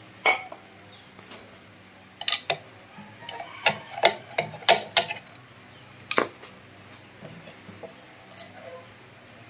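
Sharp metal clicks and knocks from the rear wheel hub and brake parts of an electric bike being worked by hand: one early, a quick cluster between about two and five seconds in, and a last one about six seconds in.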